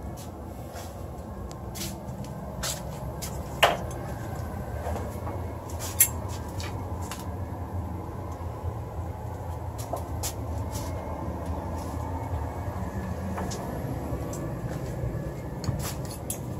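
Newly installed furnace running with a steady low hum from its blower, with scattered light clicks and two sharper knocks about 3.5 and 6 seconds in.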